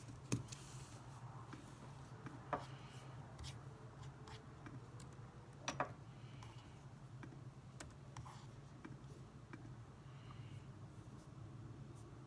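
Quiet desk-work sounds: scattered light taps and short scratching, like pen on paper, with three sharper clicks in the first six seconds, over a low steady hum.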